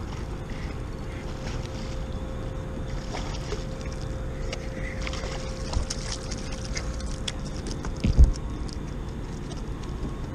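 A hooked fish splashing at the water's surface beside a kayak as it is hand-landed, with water sloshing and scattered splashes over a steady rumble of wind on the microphone. A single loud thump about eight seconds in.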